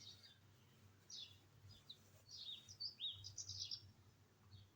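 Faint bird chirps: short, high, falling calls scattered through, with several in quick succession around the middle, over a faint low hum.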